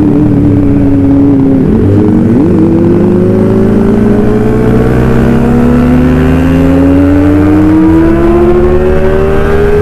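Kawasaki ZX25R's 250 cc inline-four engine running through a racing exhaust under way. Its pitch dips briefly about two seconds in and again near the end as gears change, and otherwise climbs steadily as the revs build.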